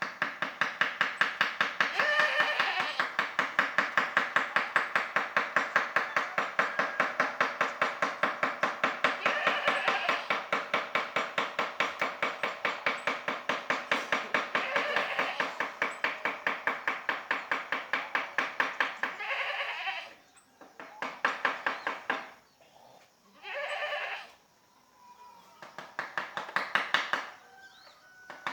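Wooden mallet tapping a steel carving chisel into teak wood in a fast, even rhythm of about five taps a second, each tap with a slight metallic ring. Near the end the tapping comes in shorter runs with brief pauses.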